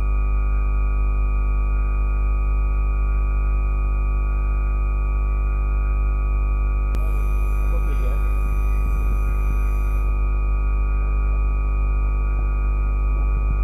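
A steady, unchanging electrical hum and buzz, a stack of fixed tones with the deepest strongest, typical of mains hum in a sound system. A faint hiss joins it about seven seconds in and lasts about three seconds.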